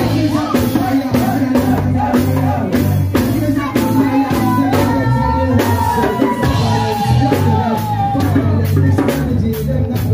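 Live band music with a steady drum beat, deep bass and a singer, loud, with a hand drum beaten along with the band.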